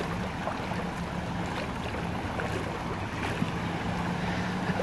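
Shallow flash-flood water rushing steadily across a paved street, a continuous wash, with wind noise on the microphone.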